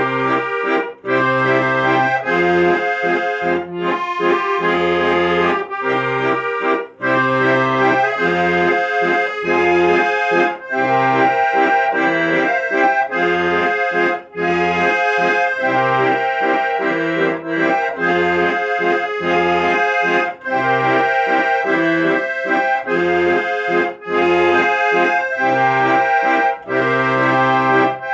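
Instrumental music led by an accordion, a sustained melody over a regular pulse of short bass notes.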